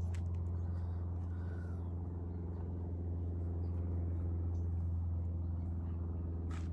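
A steady low engine hum that holds one pitch throughout, with a few faint clicks over it and a sharper click near the end.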